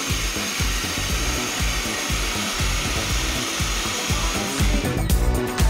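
Dog grooming dryer blowing steadily with a loud airy hiss over background music with a beat. The dryer sound drops away near the end, leaving the music.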